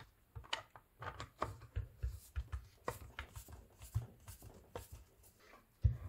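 Screwdriver working screws inside a plastic CCS charging connector, with the connector handled: faint irregular clicks and ticks, and a louder knock near the end.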